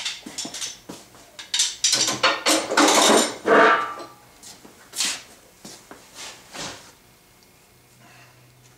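Metal clanks and knocks from tools and parts being handled around a table saw's rails and clamps: a dense run of them in the first half, then a few separate knocks, dying away to a faint low hum near the end.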